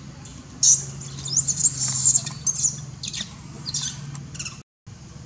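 Juvenile long-tailed macaque crying to nurse. A run of loud, high-pitched squeals that rise and fall in pitch begins about a second in.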